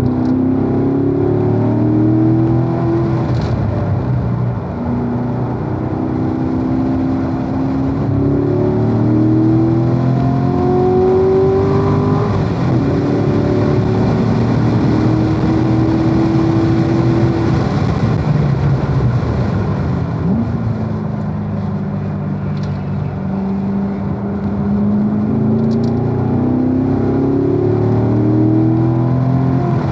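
Corvette V8 engine under hard acceleration, climbing in pitch through each gear and dropping back at every upshift. About twenty seconds in it lifts off and slows, then pulls up through the gears again near the end.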